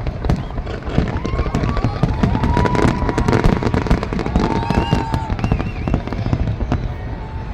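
Fireworks display bursting: a dense, continuous run of bangs and crackles.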